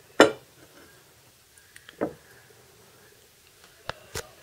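A few short, sharp clicks or taps over quiet room tone: a loud one just after the start, a softer one about two seconds in, and two close together near the end.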